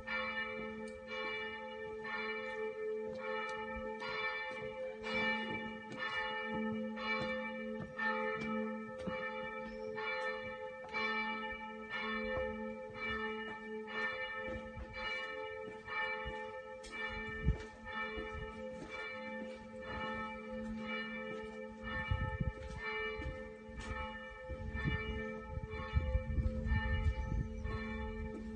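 Church bells ringing, with repeated strikes about twice a second over a steady ringing hum. In the last few seconds a low rumble on the microphone grows louder.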